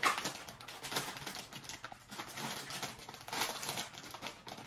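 A foil blind-bag toy packet being torn open and crinkled by hand: irregular crackling and tearing.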